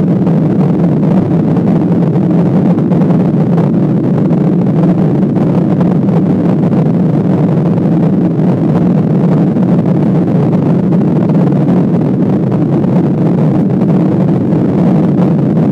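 Steady cabin noise of a Boeing 737-800 climbing shortly after takeoff: its CFM56-7B jet engines and the airflow over the fuselage make an even, loud, low drone.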